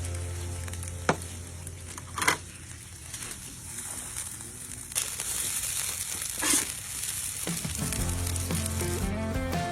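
Fried rice sizzling as it fries in a pan, with four sharp clacks of the stirring utensil against the pan. Background music plays at the start and comes back near the end.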